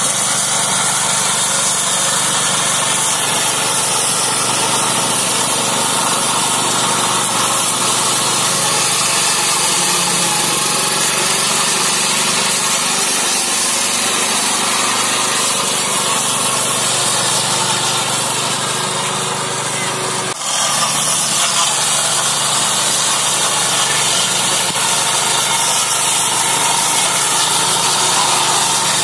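A Neva MB-2 walk-behind tractor's small petrol engine running steadily under load while its Zarya rotary disc mower cuts through tall, thick grass and weeds. The sound dips for a moment about twenty seconds in, then carries on.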